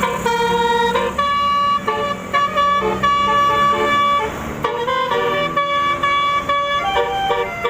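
Basuri 'telolet' multi-tone vehicle horn playing a tune, its chord of horn notes stepping from pitch to pitch with short breaks between phrases, over a low steady hum.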